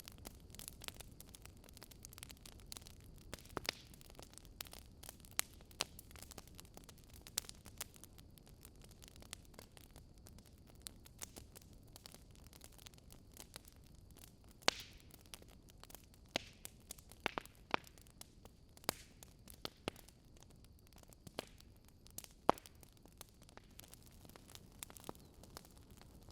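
Wood fire crackling: irregular sharp snaps and pops from burning logs over a soft low hiss, with a louder pop about two-thirds of the way through.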